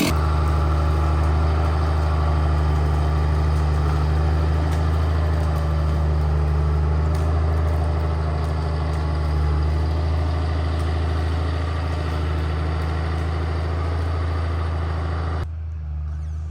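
An engine running steadily at idle, an even drone that barely changes in pitch.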